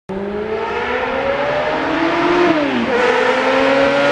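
Motorcycle engine accelerating, its pitch climbing steadily, then dropping for an upshift about two and a half seconds in and climbing again.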